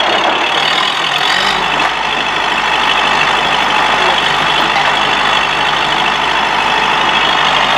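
Farm tractor's diesel engine running loud and steady under load as it pulls down a brick wall.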